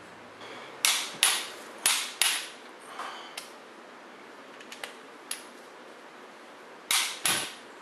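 Sharp metallic clicks in pairs about half a second apart, three loud pairs with a few fainter clicks between, typical of a click-type torque wrench breaking as cast-iron cylinder-head bolts reach 70 ft-lb on a 440 Mopar big-block.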